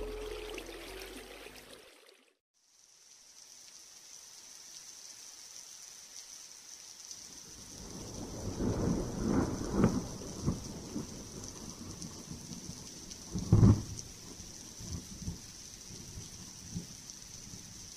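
Background music fades out, and after a moment's gap a rain-and-thunder ambience begins: steady rain hiss, with thunder rolling about halfway through and a sharper, louder thunderclap about three-quarters of the way in.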